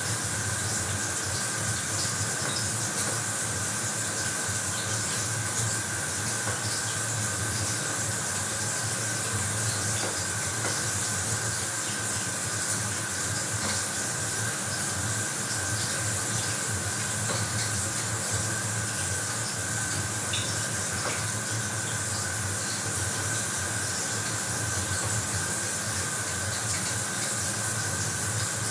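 Bathroom shower running, water spraying steadily with an even hiss and a faint steady tone underneath.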